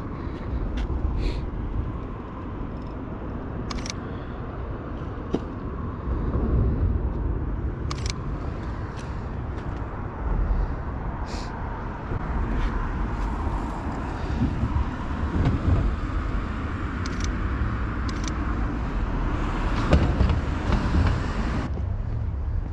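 Outdoor city ambience: a steady rumble of road traffic, with a dozen or so short, sharp clicks scattered through it.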